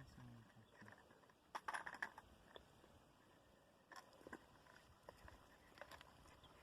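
Near silence: faint background with a few soft clicks and knocks, a short cluster about a second and a half in and another single click about four seconds in.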